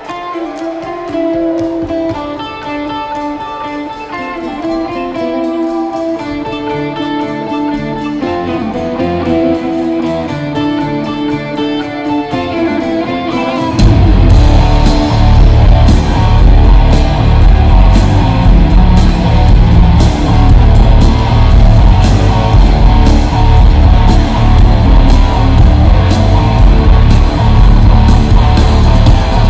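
Live jam-band rock with electric guitar. A quieter guitar-led melodic passage plays over sparse low notes, then about halfway through the full band comes in much louder, with steady drums and heavy bass.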